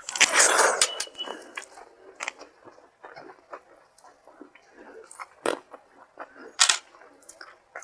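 Close-up eating sounds of a person eating rice and fish curry: chewing with wet mouth clicks and smacks. A louder, longer noisy burst comes in the first second, and there are sharper smacks at about five and a half and six and a half seconds.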